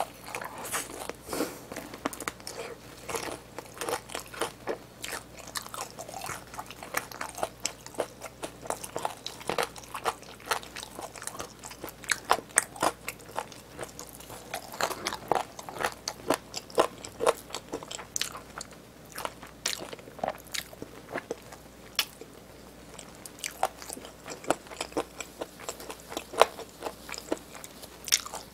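Close-miked chewing of crisp fried chicken: a steady run of irregular crunches and crackles from biting and chewing the fried coating, with a louder stretch of crunching about halfway through.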